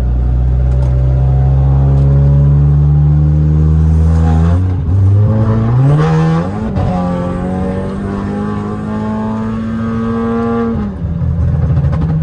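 Car engine accelerating up a highway on-ramp: its pitch climbs slowly, drops at a gear change about four and a half seconds in, climbs again, then holds steady before falling off near the end.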